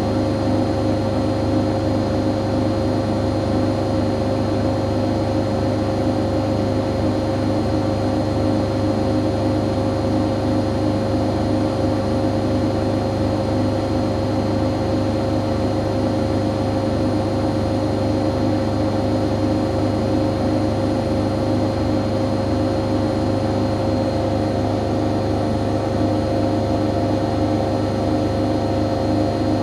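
Siemens Siwamat IQ 716 front-loading washing machine running, a steady motor whine with a constant tone over a low hum, unchanging in level.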